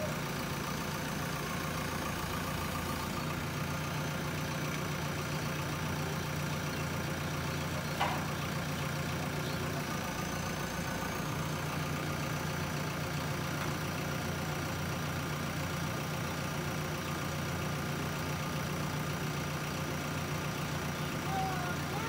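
Diesel engine of a JCB 3DX backhoe loader idling steadily, with a single short knock about a third of the way through.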